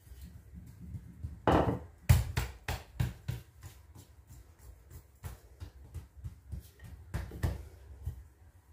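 Wooden rolling pin rolling out puff pastry dough on a countertop between folds: a low rolling rumble with a run of knocks and taps, loudest from about a second and a half to three and a half seconds in, and again near the end.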